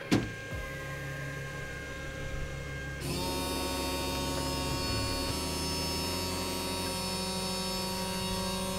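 Rotary tool used as the spindle of a Creality CR-10 CNC conversion, running steadily with a hum and a whine of several constant tones as a PCB milling job begins. It gets louder about three seconds in.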